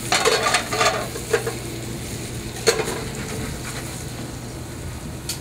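Floured chicken cutlets frying in oil and butter in a skillet on a gas range, a steady sizzle. Metal pan clatter in the first second and a half as the pasta pan is tossed, then a single metal clank near three seconds in.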